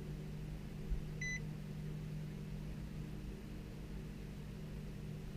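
A car's dashboard warning chime gives one short high electronic beep about a second in, over a steady low electrical hum from the car with the ignition switched on.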